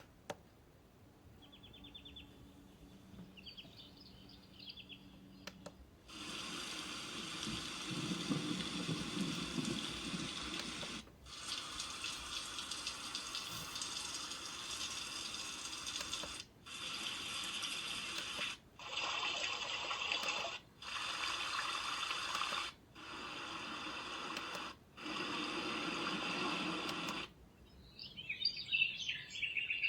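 A sunrise alarm clock's small built-in speaker stepping through its relaxing sounds: a faint short sound, then seven stretches of steady rushing, water-like noise, each a few seconds long and cut off by a short break as the next sound is chosen, and chirping birdsong near the end.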